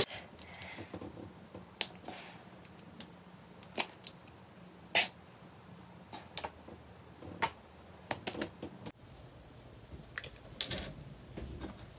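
About a dozen irregular sharp clicks and taps of a plastic makeup container being handled and pried at, which won't open.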